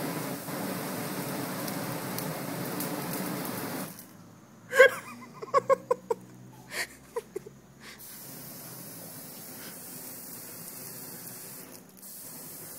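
Aerosol solvent sprayed through an open flame as a makeshift flamethrower: a loud, steady rushing of the burning spray jet for about four seconds, cutting off suddenly. After a pause, a few short, sharp voice sounds like yelps or laughs.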